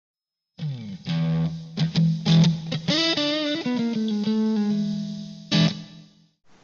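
Intro music: an electric guitar riff with sliding notes over a held low note, ending on a final strum.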